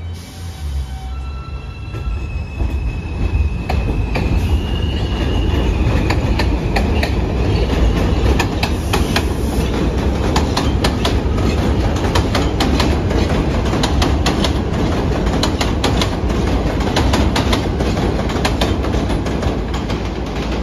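New York City subway J train running on the elevated steel structure: heavy rumble with rapid wheel clacks over the rail joints. In the first few seconds a whine steps up in pitch as the train picks up speed.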